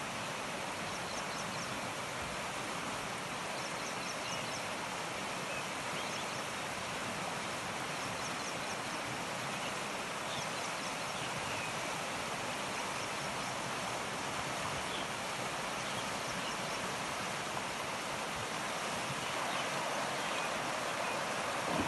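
Shallow river flowing over stones in a steady rush, with faint high chirps here and there.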